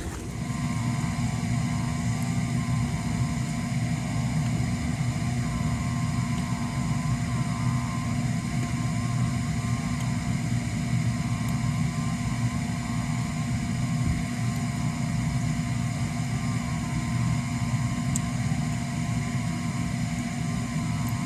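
A motor starts running about as the sound begins and keeps running steadily, a constant hum with a higher whine over it.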